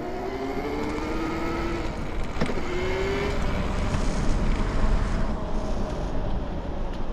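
Bafang BBSHD mid-drive motor run at 72 volts, whining and rising in pitch over the first few seconds as the e-bike accelerates. Rushing wind noise grows louder about four seconds in.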